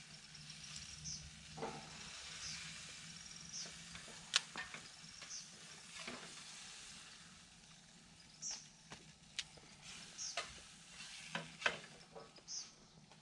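Small wood fire crackling, with irregular sharp pops. A small bird chirps short high notes about once a second throughout.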